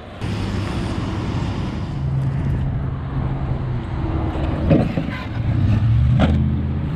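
Redcat Shredder 1/6-scale brushless electric RC truck running over dirt and launching off a jump ramp. Its low drone steps in pitch as the throttle changes, and two sharp knocks come a little past halfway and about six seconds in.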